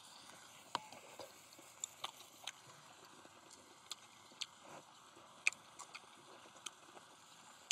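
Scattered light clicks and taps of chopsticks and tongs, about a dozen at irregular intervals, over the faint sizzle of pork belly grilling on a cauldron lid.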